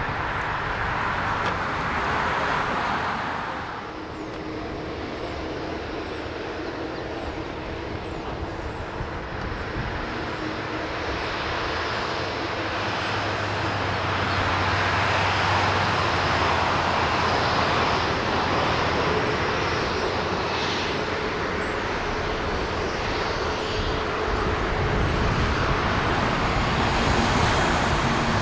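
Boeing 787-9 airliner's jet engines running at taxi power, a steady whine and rumble that grows gradually louder as the jet lines up on the runway.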